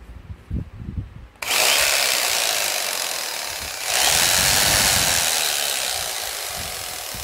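Electric jigsaw fitted with a sandpaper-covered wooden stick in place of its blade, switched on about a second and a half in and running with the stick moving up and down. It surges louder about four seconds in, then slowly eases off. A few low knocks come before it starts.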